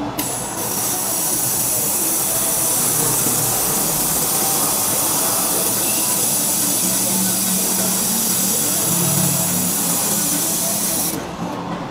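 Handheld wire-fed laser welder running a bead on steel, a steady high hiss of gas and sparking weld. It cuts off suddenly about a second before the end.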